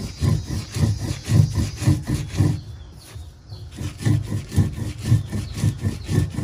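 Stone roller of a piedra de moler (grinding stone) rubbing back and forth over toasted pumpkin seeds, a fast rhythmic grinding at about three or four strokes a second. The strokes pause for about a second midway, then resume. This is the second pass, grinding the seeds fine.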